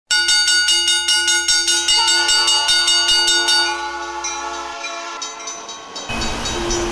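Train horn sounding a sustained chord of several notes, pulsing steadily. Some of its notes shift about two seconds in, and the chord fades away over the next couple of seconds. Near the end a steady low hum and hiss takes over.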